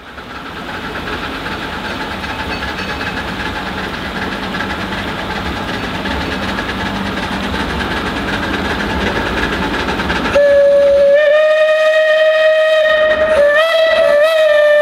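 A 15-inch gauge live-steam train approaching, its running rumble growing steadily louder; about ten seconds in, the 4-4-0 steam locomotive's whistle starts and holds one long, steady note that wavers briefly near the end.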